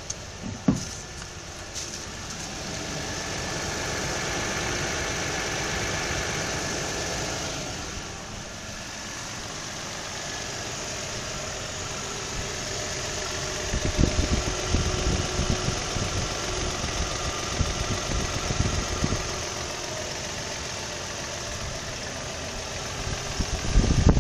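2003 Nissan engine running warm, its speed rising and falling back in the first third. From about halfway on, low irregular knocking pulses come through, loudest near the end: the knock or slap that the owner hears only when the engine is warm, around 2,000 rpm.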